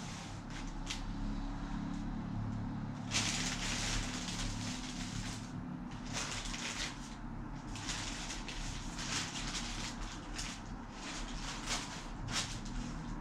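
Intermittent rustling and scraping of a plastic bag being handled and moved over the floor, in repeated short spells, over a steady low background hum.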